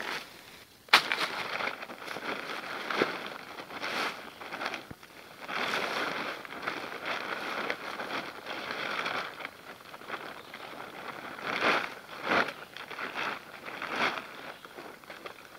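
Rustling and crinkling of a green plastic tarp with a silver reflective lining being unfolded and handled over dry leaves, in irregular bursts, with a sharp click about a second in.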